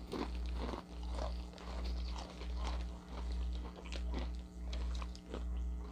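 Crunching and chewing of toasted cracker chips (Ritz Toasted Chips, sour cream and onion) in irregular crisp crunches. Underneath runs a low hum that swells and fades about every three quarters of a second.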